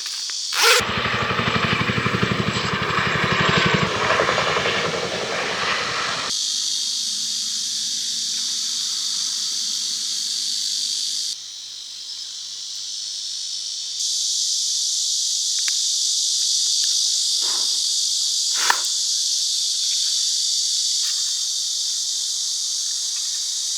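Insects chirping steadily in a high, even drone. For the first few seconds a louder rumbling hiss covers them, and a sharp click sounds about three-quarters of the way through.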